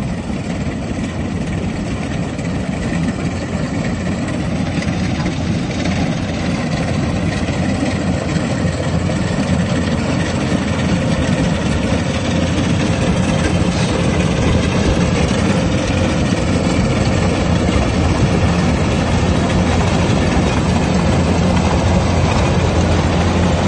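Kubota rice combine harvester's diesel engine running steadily, slowly growing louder.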